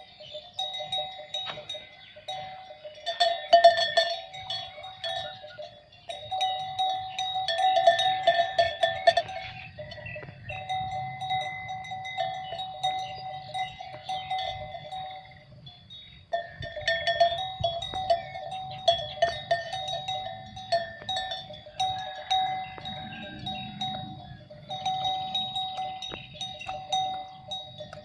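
Bells hung on cattle ringing and clanking irregularly as the animals move, several bell tones overlapping. The ringing drops away briefly twice, near the middle.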